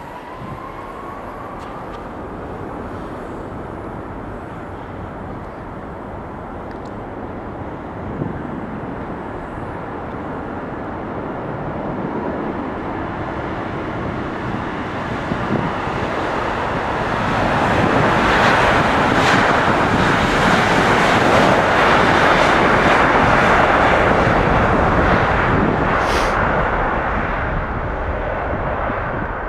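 Jet airliner passing close by: the roar of its engines builds for much of the time, stays at its loudest for several seconds, then eases off near the end.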